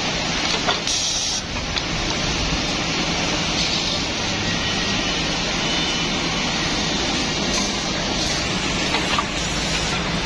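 Three-way triangle-bracket drilling machine running: its electric drill motors run steadily while the bits bore angled and edge holes in pine blocks. There is a short hiss about a second in and a few light clicks.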